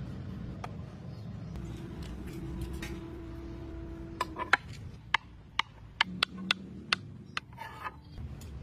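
Knife chopping peeled green bananas on a wooden cutting board. There are about ten sharp knocks, two to three a second, starting about halfway through, over a low background rumble.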